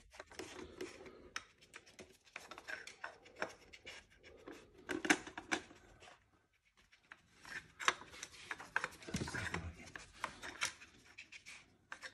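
A dog working a plastic treat-puzzle board with its nose and paws: irregular small plastic clicks, knocks and scrapes as lids and pegs are pushed and shifted, with a brief lull about halfway through.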